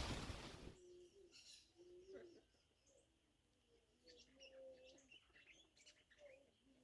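Wind buffeting the microphone cuts off under a second in. Faint bird calls follow: short low cooing notes and scattered high chirps.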